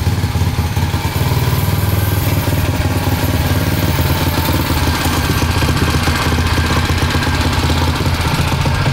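Tillotson 225 single-cylinder racing engine, a Honda GX-style clone mounted in a motorcycle frame, running steadily with a low, fast, even pulsing beat.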